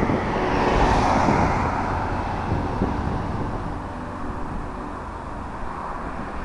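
Street traffic: a car passes on the road, its engine and tyre noise swelling about a second in and then fading away.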